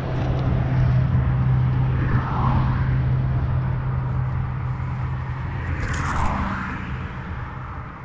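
Steady low engine hum over a constant low rumble, fading out about seven seconds in, with brief rustling about two and six seconds in.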